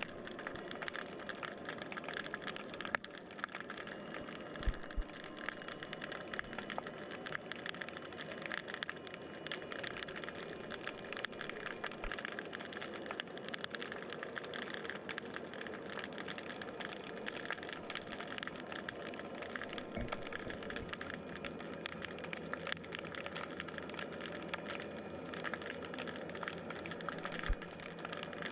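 Underwater ambient sound picked up by a submerged camera: a steady, dense crackling hiss with a few faint steady tones, and a few soft low thumps.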